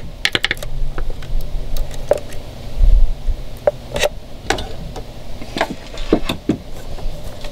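Scattered light clicks, taps and small metallic pings as the throttle cable end and linkage on a Yamaha F70 outboard are handled and adjusted, with a dull thump about three seconds in.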